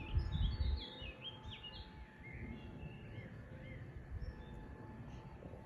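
Small birds chirping in quick runs of short, high notes, thickest in the first two seconds and then sparser, over steady outdoor background noise.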